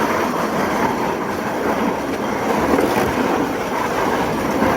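Steady rattling rumble of a rider sliding down a long outdoor slide.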